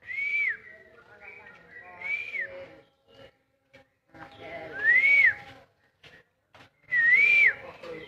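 Black-naped oriole giving four clear fluting whistles, each rising and then falling in pitch, about two seconds apart. The last whistle dips briefly before it rises.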